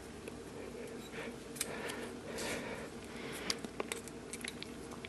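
Faint scattered clicks and short scrapes of a screwdriver tightening the screws around the grinding head of a tungsten grinder.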